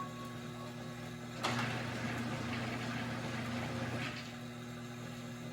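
Glass lathe running with a steady low hum; a rushing, whirring noise swells about a second and a half in and fades away around four seconds in.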